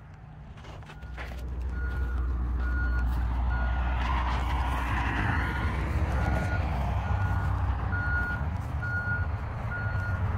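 A heavy vehicle's engine running, growing louder about a second in, while its reversing alarm beeps steadily, about three beeps every two seconds.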